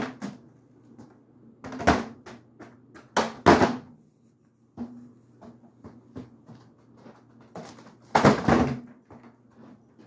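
Foil birthday balloon being batted by the blades of a spinning ceiling fan: several crinkly slaps and rustles, the loudest about two, three and a half and eight seconds in, over the steady low hum of the fan.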